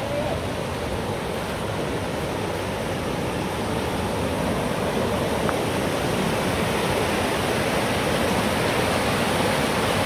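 Mountain stream rushing over boulders in shallow rapids, with a waterfall just upstream: a steady, loud noise of water that slowly grows louder.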